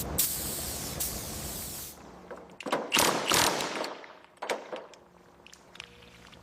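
A steady hiss of spray cuts off about two seconds in. A quick cluster of sharp knocks and clatters follows, then a few faint clicks.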